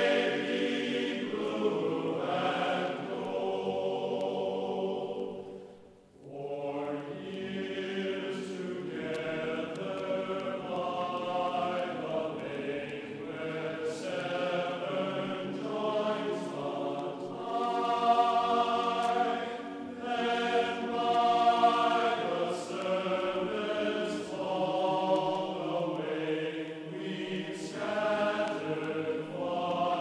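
Choral music: voices singing long held chords, with a brief break about six seconds in.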